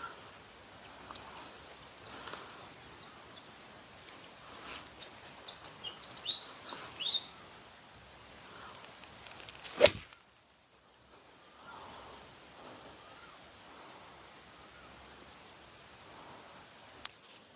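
An iron striking a golf ball off fairway turf: one sharp crack a little past the middle. Birds chirp and twitter, busiest in the first half.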